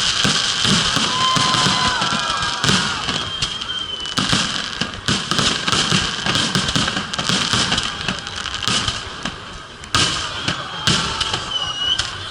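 Fireworks going off in quick succession: a steady barrage of bangs and crackling that thins out a little, then picks up again with a sharp bang about ten seconds in.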